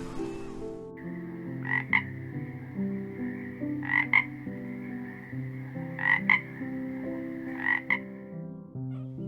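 Frog calling: four double croaks about two seconds apart over a steady high-pitched call, with background music playing underneath.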